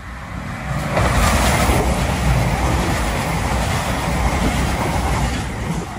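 East Midlands Railway Class 222 Meridian diesel multiple unit running past the platform. Its loud wheel and engine noise, with a deep rumble underneath, builds about a second in, holds steady and eases off near the end.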